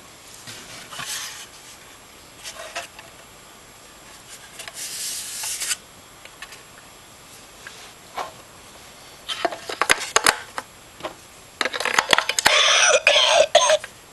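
Light rustling and handling with a few clicks, then, about twelve seconds in, a novelty lungs-shaped ashtray's electronic cough sound starts: a loud, choppy recorded coughing fit, set off by its sensor when a cigarette is laid in it.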